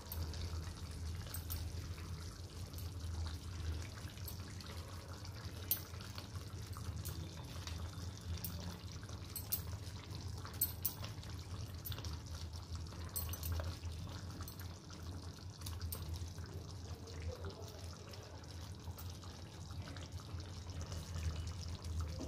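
Thick curry simmering in a pan, bubbling softly over a steady low hum, with occasional small clicks and plops as fried cauliflower koftas are set into it.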